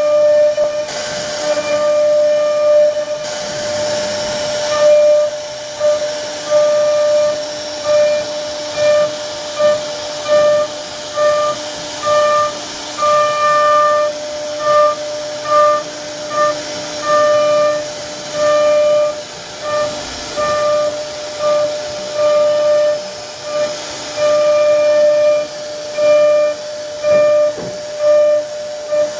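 CNC router spindle running with a high, steady whine as its carving bit cuts into a wooden board, over a hiss of cutting. The sound swells and eases roughly once a second as the bit works along the pattern.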